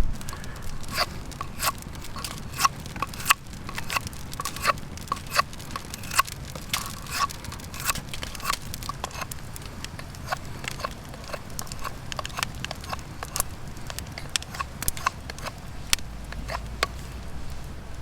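Wood fire crackling: irregular sharp pops and ticks, a few a second, over a low steady background.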